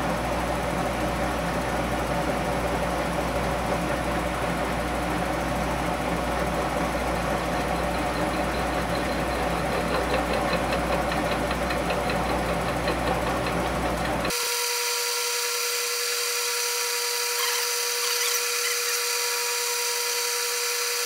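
Milling machine running off a phase converter, a steady machine hum, while the first tooth of a 19-tooth gear is cut. About 14 seconds in the sound changes abruptly: the low hum drops out and a steady high-pitched whine remains.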